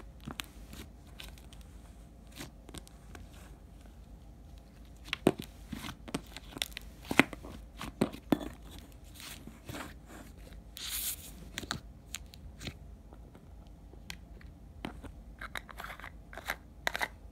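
Hands squishing, pressing and pulling apart a thick, clay-like slime, giving a string of small sticky clicks, pops and tearing crackles, loudest and busiest a few seconds in. A short rustle comes partway through, and more clicks near the end as a plastic slime tub is handled.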